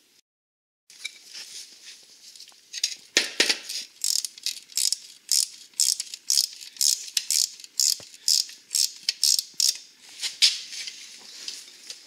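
A steel wrench clicking on a bolt head, over and over, as the bolts holding the axle plates to a Suzuki LT80 engine are turned out. It starts about a second in and settles into a regular run of about two clicks a second.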